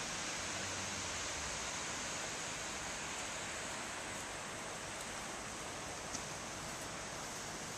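Steady hiss of water rushing through a river weir, an even noise with no change.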